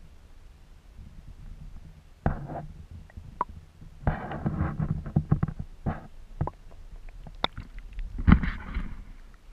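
Sound picked up through a GoPro's waterproof housing underwater: a low steady rumble, then irregular sharp knocks and splashing water as the camera is moved under the lake ice and lifted out of the water, the loudest knock near the end.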